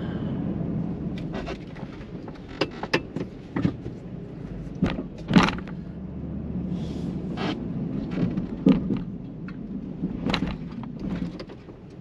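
Pickup truck's 6.2-litre V8 running steadily, heard from inside the cab while plowing snow, with a string of sharp clunks and knocks from the truck and plow spread through it.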